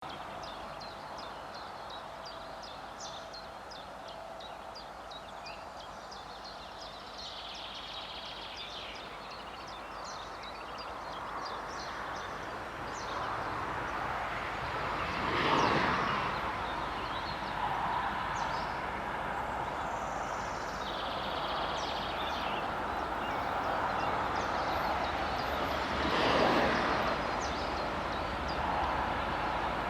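Birds chirping over a faint background. A low diesel rumble and broad noise build steadily from about the middle as an M62 diesel locomotive approaches, with two louder swells of noise, one about halfway and one near the end.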